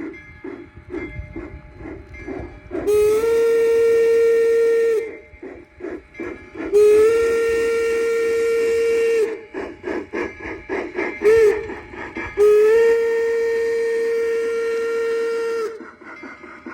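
Soundtraxx sound decoder in a Bachmann C-19 model steam locomotive, playing steady exhaust chuffs through its small onboard speaker. A multi-tone chime whistle sounds long, long, short, long over the chuffing, the grade-crossing signal.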